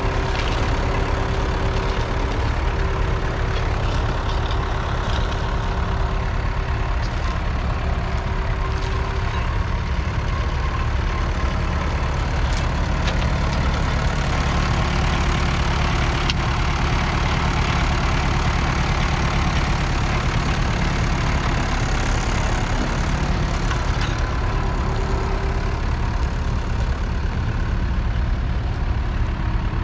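1963 Massey Ferguson 65 Multi-Power tractor's 3.3-litre four-cylinder diesel engine running steadily, with no change in pitch or level.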